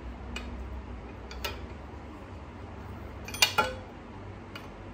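White steel tube frame parts of an IKEA ADDE chair clinking and knocking together as they are handled and fitted: a few light clicks, then two sharper metallic knocks about three and a half seconds in, the second ringing briefly.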